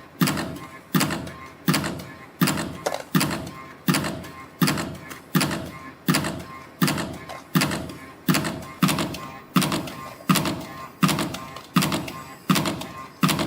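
CNC spring coiling machine (YHM CF-320) making compression springs from 1.5 mm wire: a sharp clack about every 0.7 s, one per spring cycle as each finished spring is cut off, over a faint steady machine hum.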